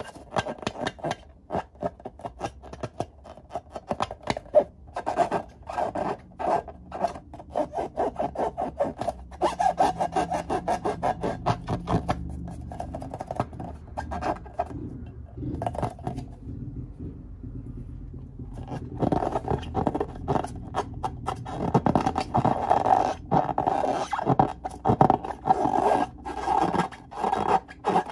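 Fingers rubbing and squeezing slime-filled latex balloons: a fast run of short scraping rubs with a squeaky edge, which pauses for a few seconds past the middle and then starts again.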